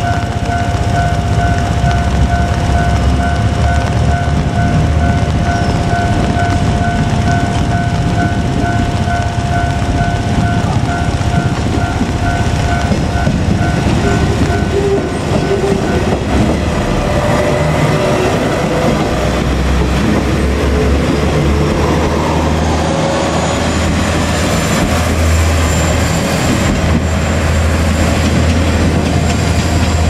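A level-crossing warning bell rings with a steady, repeating tone for about the first half. Then a two-car KiHa 47 diesel railcar set passes close by, with its engines rumbling low and its wheels clattering over the rails.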